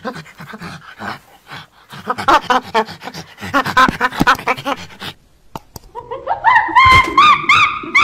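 Chimpanzee calling: quick breathy panting hoots that build, after a short pause about six seconds in, into louder, higher rising hoots and screams about two a second, like a pant-hoot.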